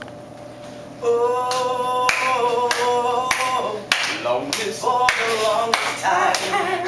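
Men singing a cappella while clapping a steady beat, about three claps every two seconds; the singing and claps start about a second in after a quieter opening.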